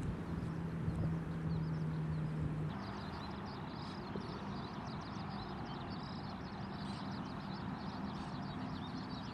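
Outdoor riverside ambience: a steady low engine hum that shifts to a slightly higher pitch about three seconds in, with rapid, high bird chirping running from then on.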